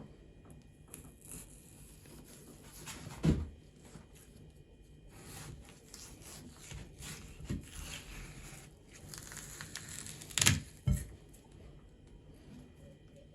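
A watermelon being handled and cut, with scraping and crunching broken by a few dull thuds: one about three seconds in and two close together about ten seconds in.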